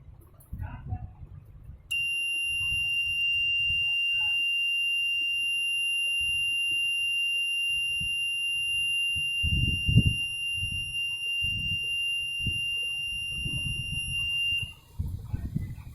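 Door alarm's buzzer sounding one continuous high-pitched tone for about twelve seconds, starting a couple of seconds in and cutting off suddenly near the end. Low knocks and rumbling run underneath.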